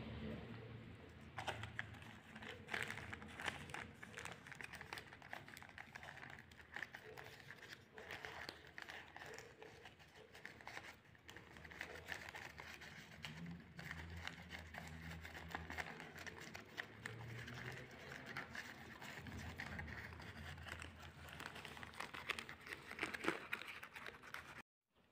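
Thin plastic seedling bags and cups crinkling and rustling under the hands, with many small irregular clicks and taps, while lettuce seedlings are transplanted into soil. The sound stops abruptly near the end.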